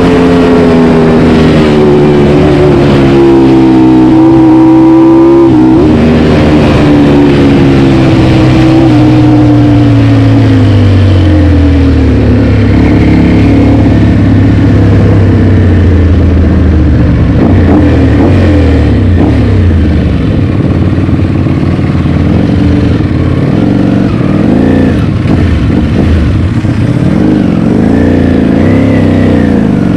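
Ducati Panigale V4 engine through an Akrapovic GP exhaust, heard from the saddle while riding: it pulls up through the revs over the first few seconds, then eases off with falling pitch. Later it runs at lower revs with several short throttle rises and drops.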